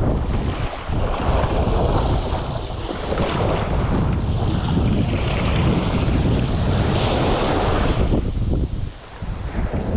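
Wind buffeting the microphone over the wash of the sea: a loud, uneven rumbling noise with no steady tone, easing briefly near the end.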